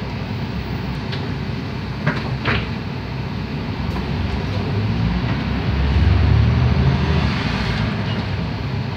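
Mercedes-Benz OM447hLA inline-six turbo diesel of an O405NH city bus running under way, heard from inside the cabin. There are two short knocks or rattles about two seconds in. The engine note grows louder and deeper for a couple of seconds past the middle, then eases off.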